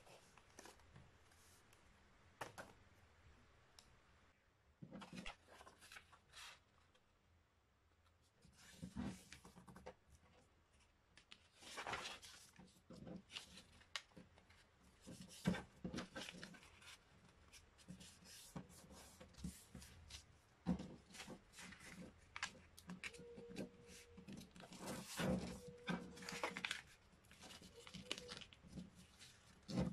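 A sheet of paper being folded by hand: faint, irregular rustles and scrapes as fingers crease the folds and slide over the paper against a tabletop.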